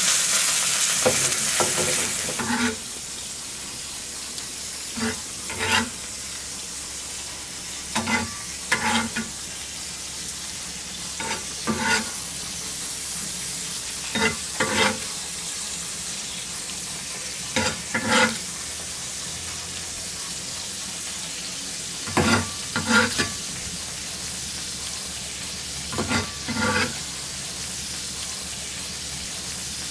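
Pork steak sizzling on a hot clay grilling plate: a loud hiss for the first couple of seconds, then a steady, quieter sizzle. About every three to four seconds a knife blade scrapes the plate in a pair of short strokes, scooping up the hot fat to baste the steak.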